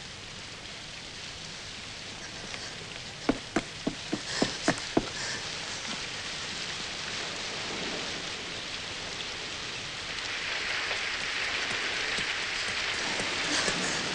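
Steady rain, gradually getting louder. A quick run of about seven sharp knocks comes a little over three seconds in.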